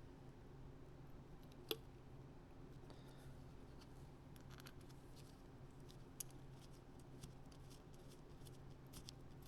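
Faint scattered clicks and ticks of small carburetor parts being handled, one sharper click a little under two seconds in, over a low steady hum.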